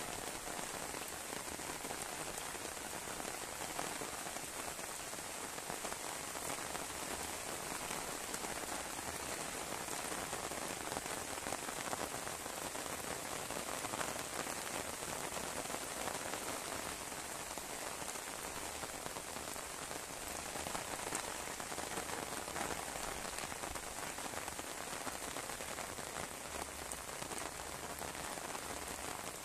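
Heavy rain falling steadily: a dense, even hiss of drops on wet pavement and leafy plants.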